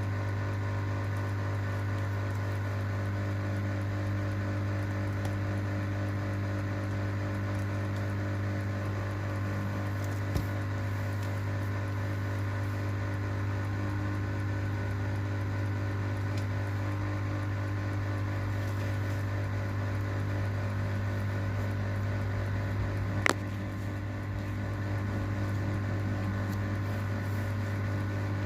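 Steady electric machine hum with several steady tones, broken by a sharp click about ten seconds in and a louder click about 23 seconds in.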